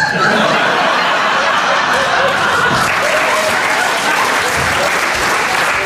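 Audience breaking into applause, a steady, even clapping that starts abruptly and holds at the same level.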